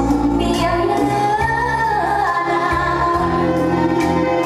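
A song with a woman singing a melody over a bass line, played loud.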